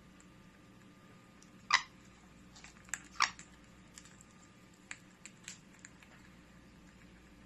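Pyrrhura conure giving two short, harsh calls about a second and a half apart, with a few faint clicks scattered around them.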